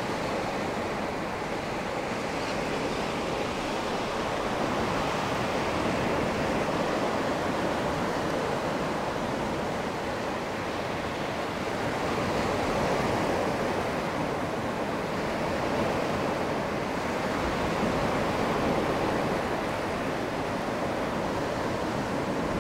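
Small Black Sea waves breaking and washing up over the sand at the shoreline: a steady surf rush that swells and eases every few seconds.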